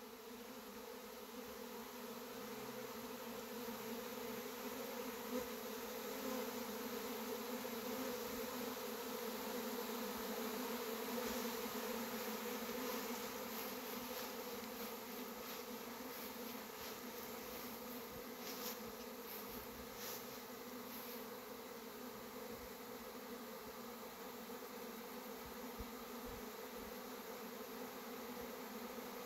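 Swarm of honeybees in flight, a steady, even drone from many bees at once.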